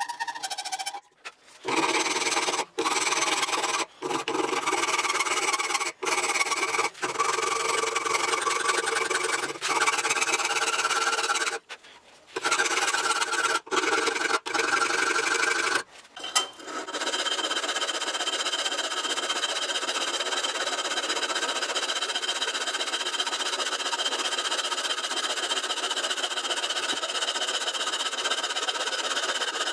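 Metal being ground or filed with an abrasive tool: a harsh rasping noise. In the first half it stops and restarts several times, then it runs on steadily with a faint even whine through it.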